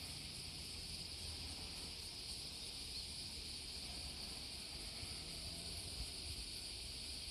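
Insects droning steadily, a high, even hum with a low rumble underneath.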